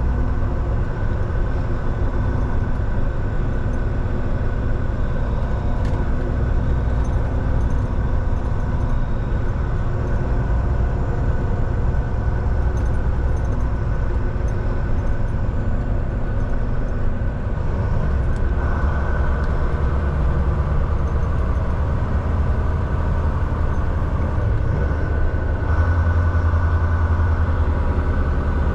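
Volvo semi truck's diesel engine running under way with steady road noise. After a brief dip in level about 17 seconds in, the low engine note comes back stronger, and it strengthens again near the end.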